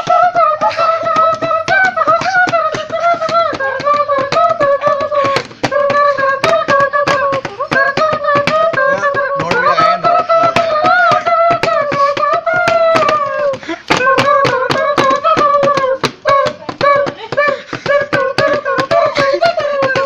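A tune played with the mouth through cupped hands: a held, wavering pitched melody, over a steady beat of sharp mouth-made clicks and pops. The tune breaks off briefly a few times.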